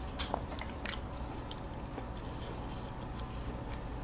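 Close-miked chewing of a hodu-gwaja, a soft Korean walnut cake: a few sharp mouth clicks in the first second, then quieter, steady chewing.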